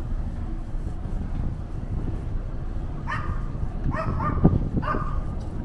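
A dog barking in short, high yips, four or five times in the second half, over a steady low rumble of wind and the ship on the open deck.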